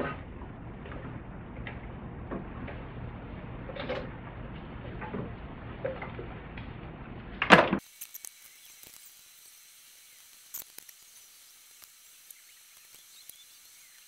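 Serpentine belt being worked over the engine pulleys by hand: rubber rubbing and light clicks and knocks of the belt against pulleys and brackets, with one loud sharp knock about seven and a half seconds in. After that only faint, scattered ticks over a low hiss.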